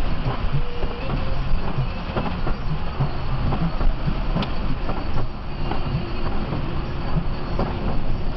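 Cabin noise of a rear-engined Mercedes-Benz OH 1526 coach under way: a steady engine drone and road rumble, with frequent short knocks and rattles from the body.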